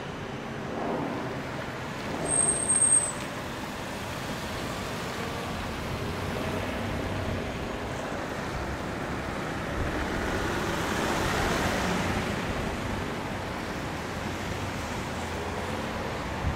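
City street traffic noise. A brief high squeal about two seconds in, and a vehicle passing by between about ten and thirteen seconds.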